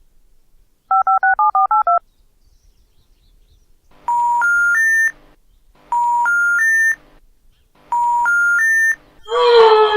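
Telephone keypad dialing: eight quick two-tone touch-tone beeps, then the three-note rising intercept tone played three times, the special information tone that signals the number can't be completed or isn't in service. A loud voiced exclamation cuts in near the end.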